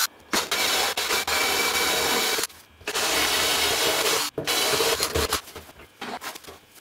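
Cordless drill boring into plywood with a Forstner bit, the bit cutting in two long runs of about two seconds each with a short pause between, then a shorter final burst. A few light knocks follow near the end.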